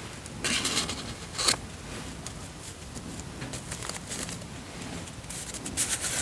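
Close-miked paper rustling and handling, in short hissy bursts with small taps and scrapes between them.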